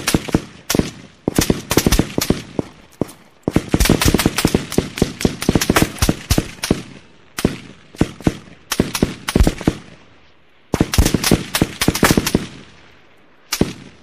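AK-47 rifle firing: rapid automatic bursts mixed with short strings of shots, including one long burst of about three seconds, ending with a single shot near the end that trails off in an echo.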